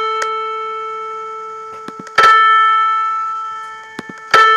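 Synthesized piano A4 played as two strings in unison, struck about two seconds in and again near the end, each note ringing and decaying smoothly as the second string is nudged toward a clean, beatless unison. Faint mouse clicks fall between the notes.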